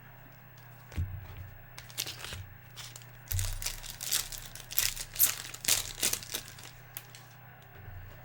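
Trading-card pack wrapper being torn open and crinkled: a run of crackling rustles from about two to seven seconds in, with a couple of low thumps from handling on the table. A steady low hum runs underneath.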